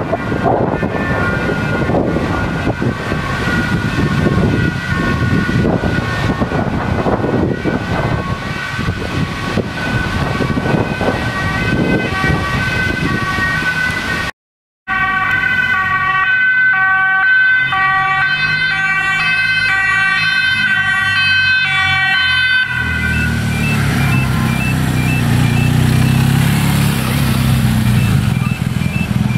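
Emergency vehicle sirens. First a siren sounds steadily over heavy wind noise on the microphone. After a brief dropout, an ambulance's two-tone siren alternates evenly between a high and a low note as it passes. Then a motorcycle engine runs at low speed, with short repeated beeps near the end.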